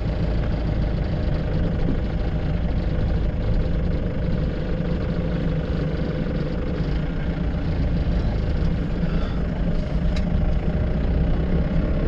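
Motorcycle engine running steadily.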